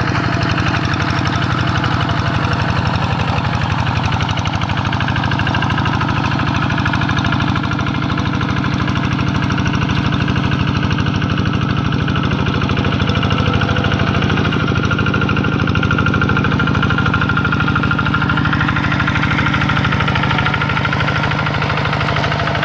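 Rice-field tractor engine running steadily, with a rapid, even pulsing beat.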